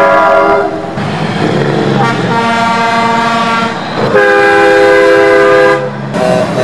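Air horns on vintage semi trucks sounding a series of long blasts, each a steady chord of several notes lasting a second or two, with short gaps between them. Diesel engines are running underneath.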